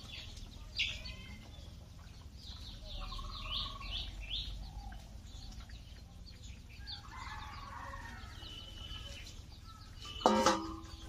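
Backyard chickens clucking and small birds chirping in quick, falling notes, with one loud, short chicken call about ten seconds in.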